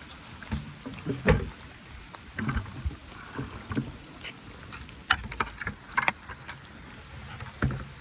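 Bull calf sucking milk from a feeding bottle's rubber teat, with irregular slurps, gulps and knocks.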